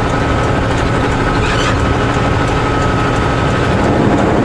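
Semi truck driving, with its engine and road noise making a steady rumble. A thin high whine runs along and stops near the end.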